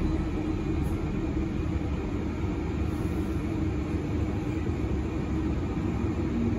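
Cabin noise inside a moving bus: a steady low rumble from the drivetrain and road with a constant hum over it, and a second, lower hum coming in near the end.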